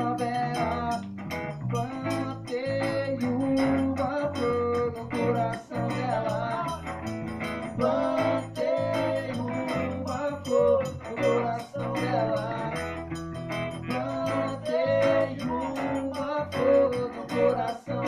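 A band playing a song, with guitar to the fore carrying a wavering melody line over steady bass and chords.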